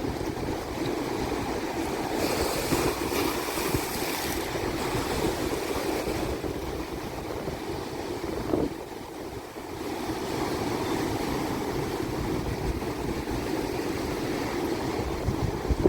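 Sea waves washing on a beach, with wind rumbling on the microphone. A brighter rush of surf comes about two seconds in.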